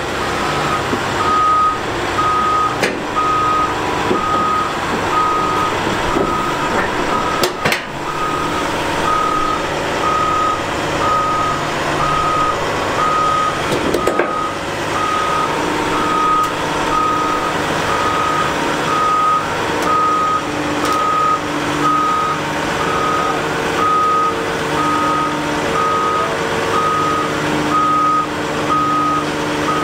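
Excavator travel alarm beeping steadily, about one high beep a second, over the steady running of the Cat 395's diesel engine as the machine moves on the trailer. A couple of short metallic knocks come about eight and fourteen seconds in.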